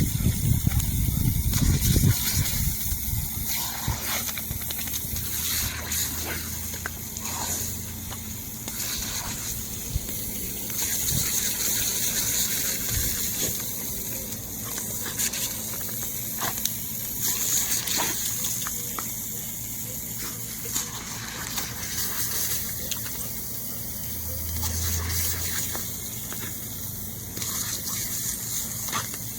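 Lawn sprinkler spraying water: a continuous hiss that swells and fades every few seconds. A low rumble sounds in the first two seconds.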